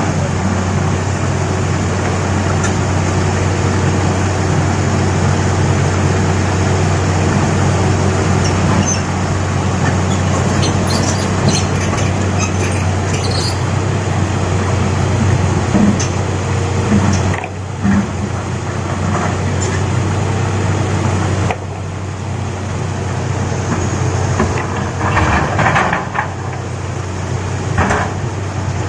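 Diesel engine of a heavy excavator running steadily under load as it works loading large rocks, with a few knocks and clatter of stone near the end.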